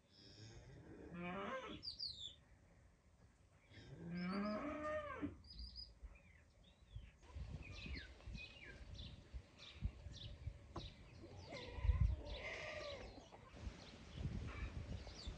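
A cow mooing, two calls in the first five seconds, followed by small birds chirping repeatedly.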